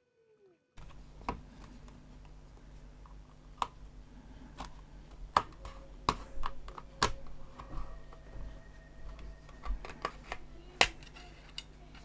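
Sharp plastic clicks and taps, about a dozen at irregular intervals, as the clipped-together plastic case of a handheld electronic crossword solver is pried and separated by hand, over a low steady hum.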